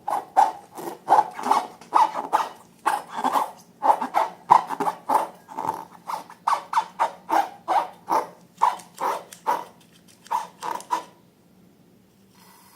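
Rubber balloons squeaking as they are rubbed and handled, short squeaks about two a second that stop about eleven seconds in.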